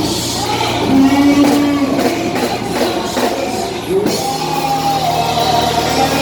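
Live church worship music: a singer holding long notes over a band with guitar, echoing in a large hall.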